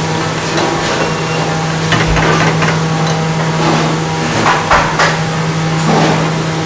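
A metal ladle knocks and scrapes against a frying pan of daal as it is stirred, several irregular clatters over a steady kitchen hum and hiss.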